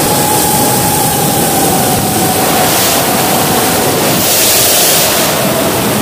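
A 5-inch FPV quadcopter's brushless motors and propellers heard from its onboard camera: a steady motor whine that holds its pitch and then slowly drops a little, under loud rushing wind and prop wash that swells briefly about two-thirds of the way through.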